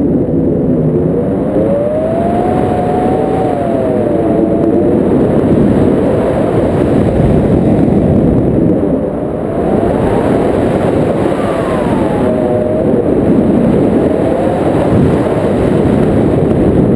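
Wind rushing over the microphone of a pole-mounted action camera during a tandem paragliding flight: a loud, steady rumble with a faint whistle that wavers up and down in pitch.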